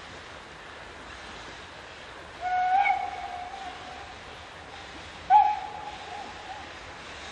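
Steam locomotive whistle sounded twice as the engine approaches: a blast of about a second, then a second, sharper-starting and louder blast a few seconds later.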